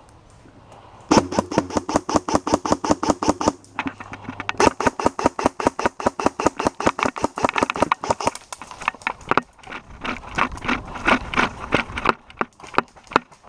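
Airsoft rifle firing long full-automatic bursts: a rapid, even stream of sharp shots, roughly a dozen a second, starting about a second in and broken by short pauses twice.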